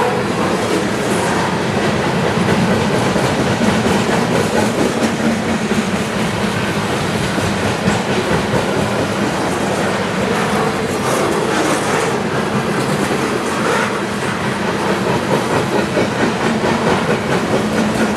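CSX freight train rolling past close by, its cars' wheels clacking over the rail joints in a steady, uneven rhythm.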